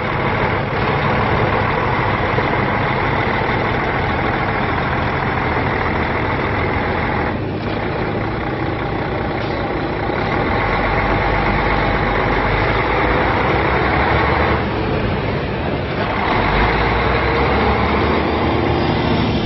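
2007 Freightliner Columbia 120 tandem-axle truck tractor's Mercedes-Benz diesel engine running loudly as the truck drives past. The steady drone dips briefly twice, about seven seconds in and again around fifteen seconds.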